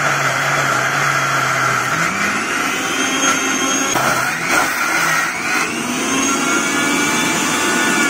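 Sujata mixer-grinder running at full speed, grinding cooked jackfruit in its stainless steel jar with no water added. The motor's pitch climbs about two seconds in, dips briefly around four seconds, then climbs again.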